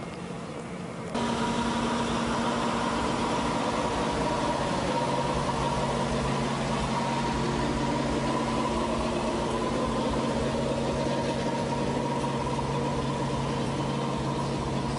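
Single-engine propeller aerobatic plane's piston engine running steadily at low power as it taxis, coming in abruptly about a second in.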